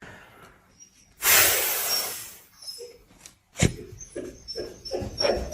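A single loud, breathy huff about a second in, fading away over about a second, followed a couple of seconds later by a sharp click.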